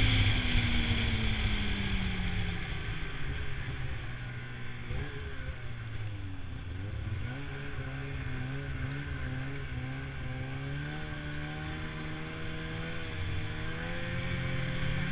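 Snowmobile engine easing off, its pitch falling over the first couple of seconds, then running slower with a wavering pitch before picking up again near the end.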